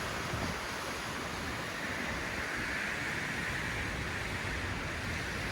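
Strong hurricane wind blowing steadily, with a low rumble of wind buffeting the microphone; a gust swells about two seconds in and eases off again.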